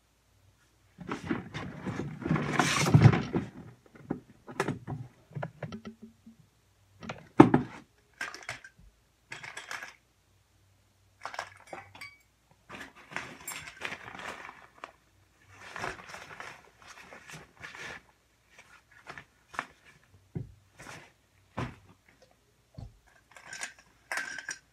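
Rummaging through makeup items while searching for the foundation: irregular clinks, clatters and knocks of small containers being handled. There is a longer clatter from about one to four seconds in and a sharp knock about seven and a half seconds in.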